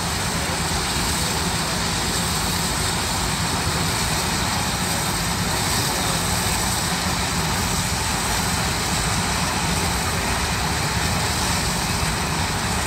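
Steam shovels working hard enough to drive showers of sparks out of their stacks: a steady rumble and hiss with no separate exhaust beats.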